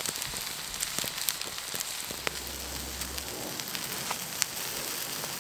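Potatoes, onions and meat frying in a skillet over a campfire: a steady sizzle with scattered sharp crackles from the burning wood.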